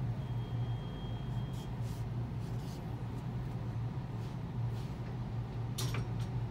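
Steady low background hum, with a few faint clicks and rustles and a sharper cluster of clicks near the end.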